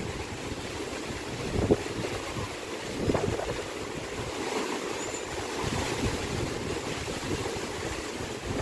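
Rough sea surf and wind, with gusts buffeting the microphone in low rumbles, strongest briefly about two and three seconds in.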